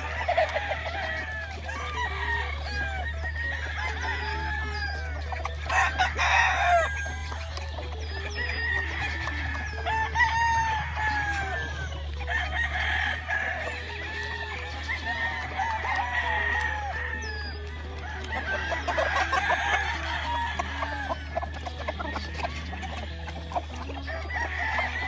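Gamefowl roosters crowing again and again, overlapping one another, with chicken clucking in between. A steady low hum runs underneath.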